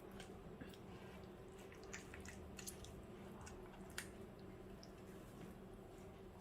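Faint, scattered wet clicks and squelches of hands rubbing spice paste into raw fish pieces, over a faint steady hum.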